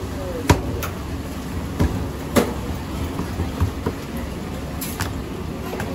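Roti canai dough being worked by hand on an oiled steel plate: a handful of sharp slaps and knocks, irregularly spaced, as the dough is pressed and slapped down and spread thin. Under them runs a steady low background rumble.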